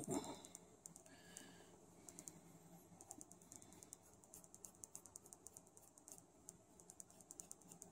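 Faint, irregular light ticks and scratches of a stiff paintbrush dry-brushing across an embossed stonework surface.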